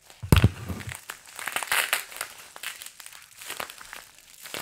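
Bubble wrap crinkling as hands squeeze and pull at a bubble-wrapped package, with scattered crackles, and a dull thump near the start.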